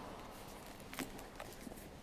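Faint room tone of a quiet church with a few small knocks and clicks, the sharpest about a second in.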